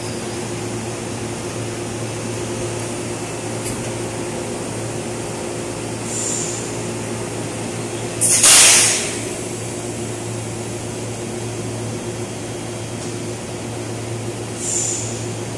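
Electric commuter train standing at a platform, its onboard equipment giving a steady hum. About eight seconds in, a loud hiss of released air lasts about a second. Two fainter short hisses come before and near the end.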